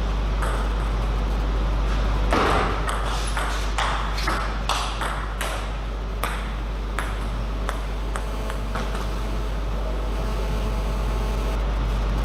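Table tennis rally: the plastic ball clicks in quick succession off rackets and table from about two seconds in until about nine seconds, the loudest hits near the start. A steady low hum runs underneath.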